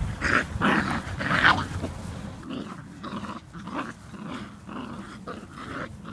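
Several black Labrador puppies growling in play as they tug at a rope together.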